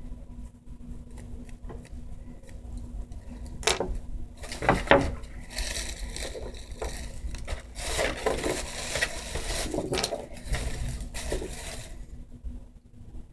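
Small hard objects from an acrylic nail kit being handled: sharp knocks about four and five seconds in, then several seconds of scratchy rubbing and small clicks. A faint low steady hum runs underneath.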